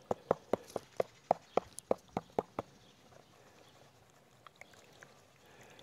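Water slapping and sloshing in a green plastic gold pan shaken back and forth while panning out concentrate: about a dozen sharp, rhythmic slaps at roughly four a second. They stop after about two and a half seconds, leaving only a few faint ticks.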